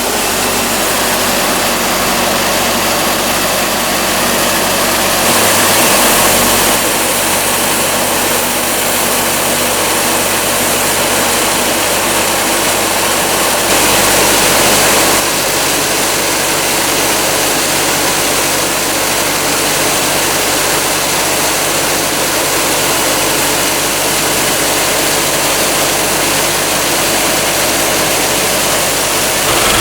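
Large sawmill machinery running steadily, engine and saw noise together, growing louder for a moment twice.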